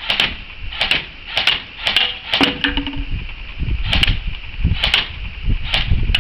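Airsoft M4A1 carbine firing single shots on semi-auto: a run of sharp clicks, some in quick pairs, about one every half second to second, with a pause of about a second and a half in the middle.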